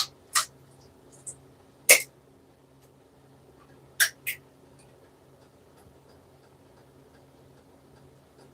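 Several sharp clicks and knocks, about six in the first four and a half seconds, then only a faint steady low hum.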